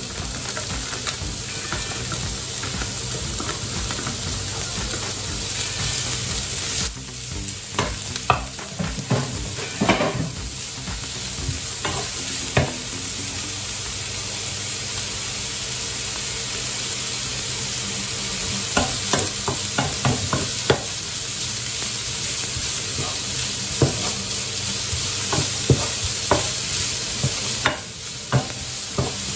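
Chopped bacon sizzling in a frying pan, with a wooden spoon scraping and knocking against the pan as it is stirred, in two spells of stirring: about a quarter of the way in and again past the middle.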